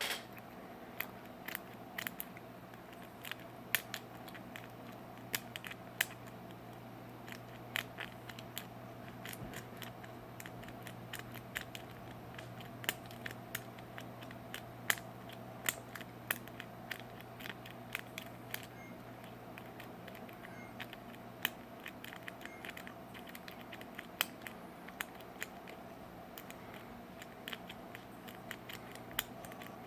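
A rake pick being worked through a Master Lock padlock's pins under a tension wrench: irregular small metallic clicks and scrapes, several a second at times, as the pins are raked.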